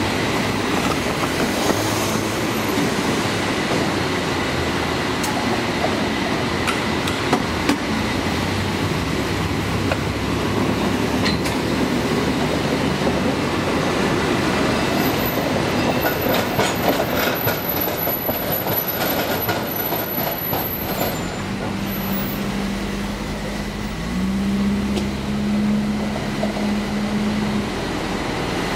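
Steady rumble and clatter of a cable-car line: the haul cable running in its slot under the street and cars driving across the rails, with a cable car rolling up near the end. A steady low hum joins about three-quarters of the way through.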